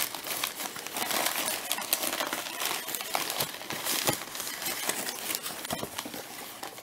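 Crumpled packing paper crinkling and rustling as hands pull it open and unwrap it, a dense run of small crackles.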